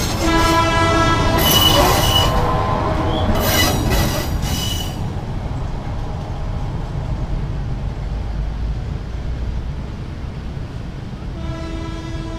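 Batara Kresna railbus passing on a tight curve in street track, with a steady low rumble that fades as it draws away. A horn sounds as it passes. Shrill wheel-flange squeal from the curve comes in two bursts, about a second and a half and three and a half seconds in. A horn tone of the same pitch sounds again near the end.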